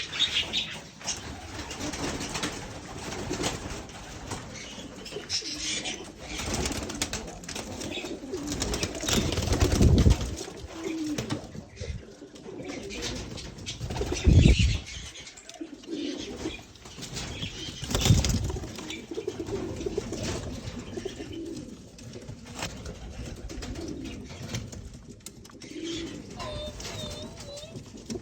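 Pigeons cooing, with wings flapping now and then. Three loud, low bumps break in about a third, half and two thirds of the way through.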